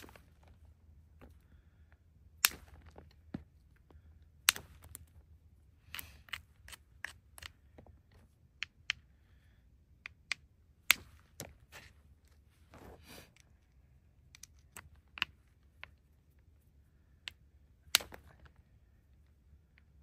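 Hammerstone knapping a piece of basalt: sharp stone-on-stone strikes at irregular intervals, a handful much louder than the rest, with softer taps in between.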